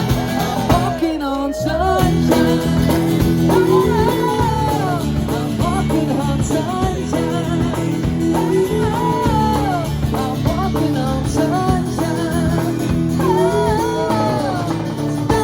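A band playing a rock song: a singer over guitar, steady and full throughout.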